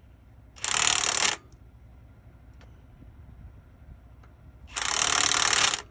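Milwaukee 1/2-inch impact wrench hammering driveshaft fasteners tight in two bursts: a short one under a second about half a second in, and a longer one of about a second near the end.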